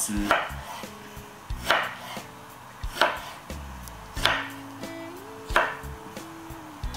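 Chef's knife slicing through a boiled bamboo shoot and knocking on a wooden cutting board. There are five unhurried cuts, each a sharp knock a little over a second apart.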